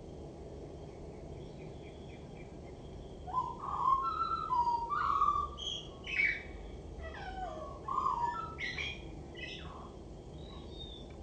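Male common blackbird singing: low, fluty warbled phrases with higher twittering notes mixed in, starting about three seconds in and tailing off near the end.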